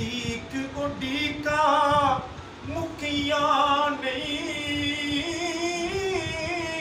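A man singing a naat, an Islamic devotional song, unaccompanied, drawing out long held notes that waver and rise a little in pitch toward the end.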